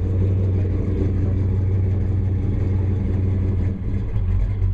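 1969 Dodge Coronet Super Bee's V8 running through its exhaust at a steady fast idle, then dropping to a lower, choppier idle a little before the end.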